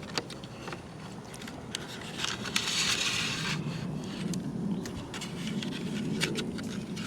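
Plastic side-mirror parts and wiring being handled and pushed into place: scattered clicks and taps, with a louder scraping from about two to three and a half seconds in.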